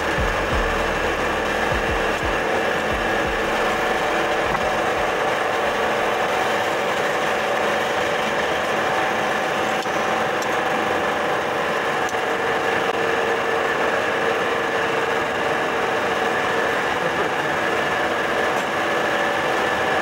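Freezer-room condensing unit running steadily: the Dorin H281CS semi-hermetic reciprocating compressor and its condenser fan give an even mechanical hum with a few steady whining tones. There are a few low bumps in the first few seconds.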